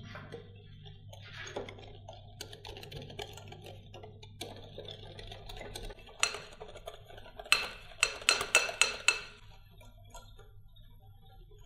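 Wire whisk stirring thick melted chocolate in a glass bowl, then clinking sharply against the glass several times, with a quick run of five or six clinks a little past the middle.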